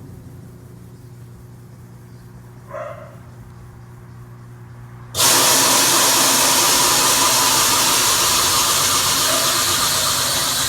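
Consul washing machine making its spin-cycle noise: a low motor hum, then about five seconds in a loud, steady rushing noise that starts suddenly. The technician traced the noise to the motor's shaft wobbling loose at the pulley, and cured it by replacing the motor.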